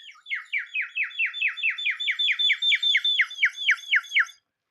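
Water-filled bird whistle blown in a warbling trill of quick falling chirps, about four a second, that stops near the end.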